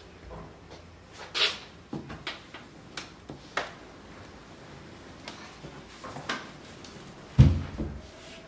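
Scattered knocks and clicks from handling an upholstered ottoman storage bed base, its lid raised on gas struts, then one heavy low thump near the end.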